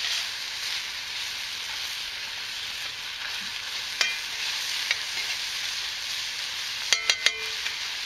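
Sliced deer steak, bell peppers and onions sizzling steadily in oil in a cast iron skillet while a metal spatula stirs them. The spatula clinks sharply against the pan about four seconds in and several times near the end.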